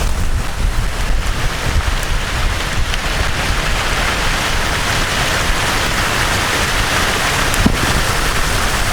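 Heavy rain pouring down in a thunderstorm, a steady hiss that grows louder a few seconds in, over a low buffeting rumble of wind on the microphone.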